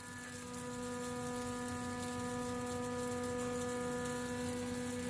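Flake ice machine running under test: a steady mechanical hum with a low tone and several fainter higher tones held constant, over a continuous machine noise.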